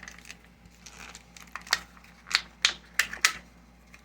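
A series of sharp clicks and taps, about five of them in the second half, over low room noise.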